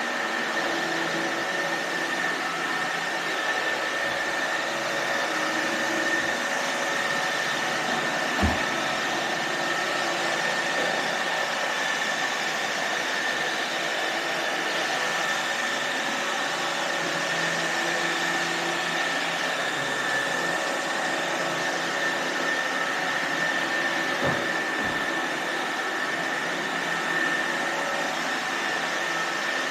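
iRobot Roomba robot vacuums running, a steady whir with a high whine, with a few short dull thumps about 8 seconds in and twice more near 25 seconds.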